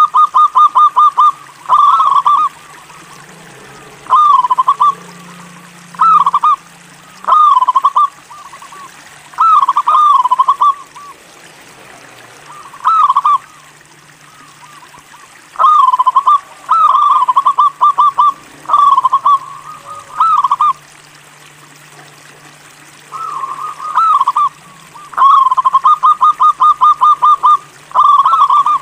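Local Javanese zebra dove (perkutut) singing: phrases of short cooing notes repeated every second or two, some running on into a quick even series of notes. The phrases pause briefly between them, with a longer pause about halfway through.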